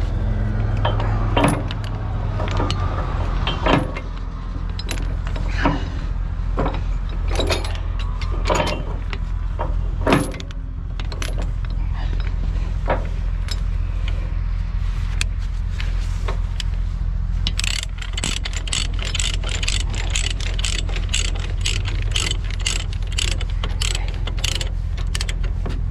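Steady low drone of a semi-truck's engine, with scattered sharp clicks and knocks, then a fast run of ticking, about three a second, over the last third.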